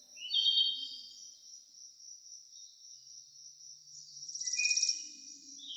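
Dusk insect chorus: a steady high-pitched trill. Two louder animal calls stand out, one just after the start and one with a rapid pulsing about four and a half seconds in.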